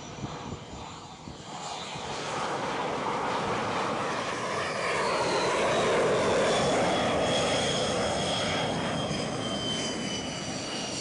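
X-47B unmanned jet's Pratt & Whitney F100 turbofan landing on a carrier deck and rolling out. The engine noise swells to its loudest about halfway through, with a high whine that slowly falls in pitch.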